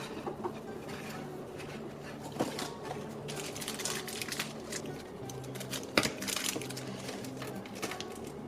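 Soft background music with held notes, over the rustling and sharp clicks of plastic toy pieces and cardboard being handled. The loudest click comes about six seconds in.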